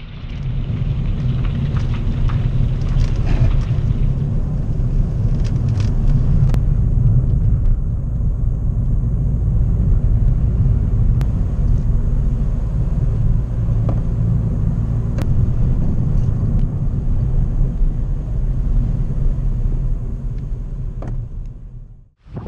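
Steady low rumble of a car's engine and tyres on a wet road, heard from inside the cabin, with a few faint ticks; it fades out near the end.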